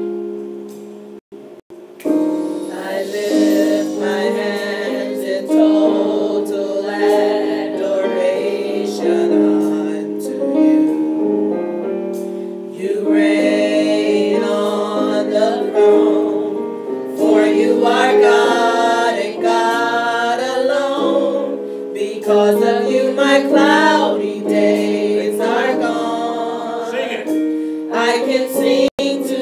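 A small group of voices singing a gospel song over held keyboard chords. The sound drops out briefly about a second in, and the singing swells in after about two seconds.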